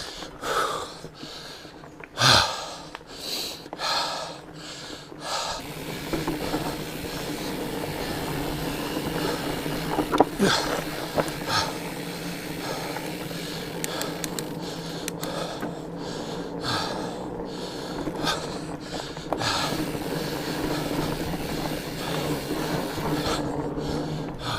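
Mountain biker breathing hard, then a Fatback Skookum fat bike rolling over rocky trail with a steady rumble and a few sharp knocks. The hard breathing returns near the end.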